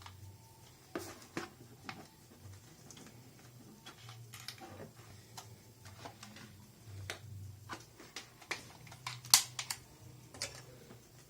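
Irregular small clicks and taps from hands handling a GSM alarm unit, the loudest a sharp click a little past nine seconds in, over a faint low hum that comes and goes.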